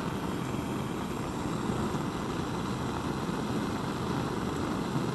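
Steady low roar of a laboratory gas burner flame heating a crucible of baking soda.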